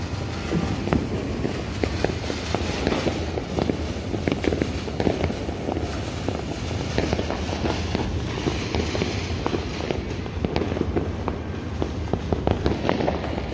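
Many fireworks and firecrackers going off at once all around, a continuous dense crackle of overlapping pops and bangs with no pause.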